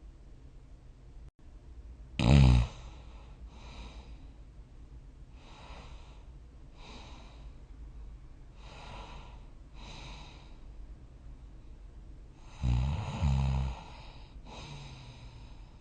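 A sleeping person snoring. There is a loud snore about two seconds in and a double snore near the end, with softer snoring breaths every second or so between them.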